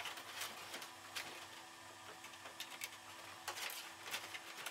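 Faint handling noise: light clicks and rustles of 3D-printed plastic parts, a servo bracket and servo wires being handled, over a faint steady hum.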